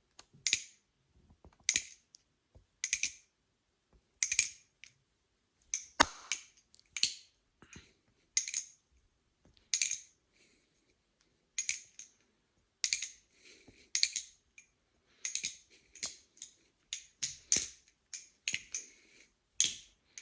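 Balisong with its blade removed being flipped, the handles and pivots clacking in sharp clicks, roughly one every second or so at first and coming faster, in pairs, in the second half. Without a blade the clacks sound a little weird.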